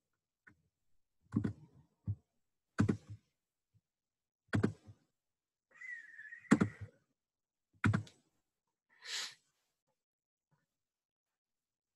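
Scattered clicks and knocks, about six in all and a second or two apart, from a computer being worked to start a live stream. A short breathy exhale comes near the end.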